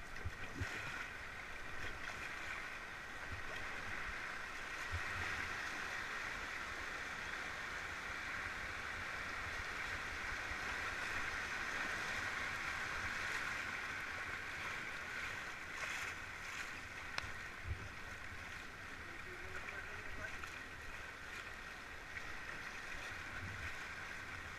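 Rushing river water over a shallow rocky riffle around an inflatable raft, a steady hiss that swells in the middle, with a few short knocks.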